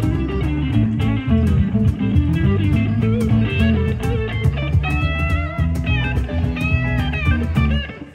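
Live blues-rock band playing: an electric guitar lead with bent notes over bass guitar and a steady drum beat.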